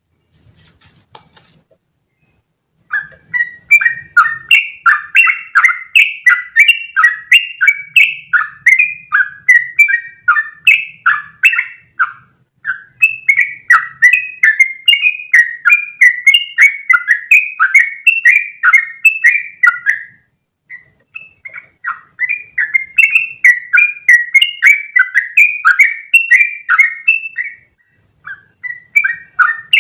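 Yellow-vented bulbul (trucukan) singing long, fast runs of bubbly notes, starting about three seconds in and going on in three long bouts with brief pauses between them.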